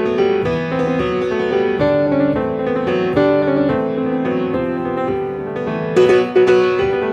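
Solo piano playing a flowing line of quick notes over sustained lower notes, with a few loud accented strikes about six seconds in.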